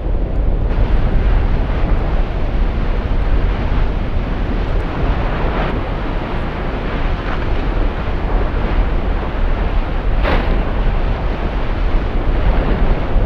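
Nyiragongo's lava lake churning with a steady low rumble like heavy surf, with a sharper burst about five and a half seconds in and another about ten seconds in.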